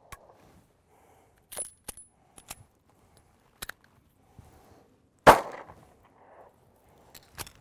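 Smith & Wesson Shield semi-automatic pistol, fouled with dirt for a reliability test, firing a single shot about five seconds in. Several short, sharp metallic clicks come from the gun being worked before the shot and again near the end: the fouled pistol is choking.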